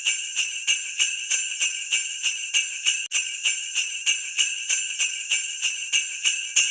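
Jingle bells shaken in a steady rhythm, about three to four shakes a second, with a brief break about three seconds in.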